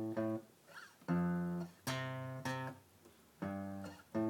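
Acoustic guitar played one note at a time on its low strings, a repeating bass figure of about five plucked notes. Each note starts sharply and rings for half a second to a second before the next.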